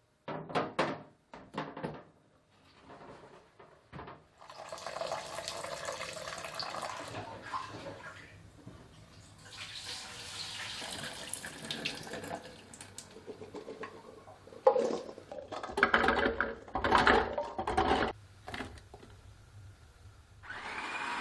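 Kitchen tap running into a sink in two long spells, with a few clicks early on and a burst of knocks and clatter near the end as things are handled at the sink.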